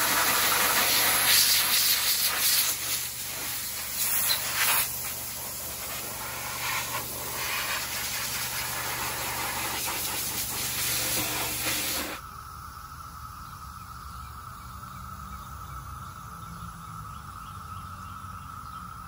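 Garden hose spray nozzle spraying water over a bare engine block from a 1952 Dodge M37, rinsing it: a loud, steady hiss that cuts off suddenly about twelve seconds in. After that there is a faint, steady high tone.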